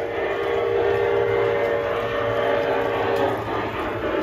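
Sound-module horn of an LGB G-scale model locomotive, a chord of several tones held for about three seconds, then cut off. Underneath runs the steady running noise of the model train on its track.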